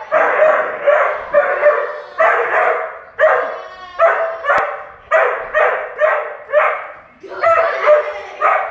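A dog barking over and over, about two barks a second, with a couple of short breaks.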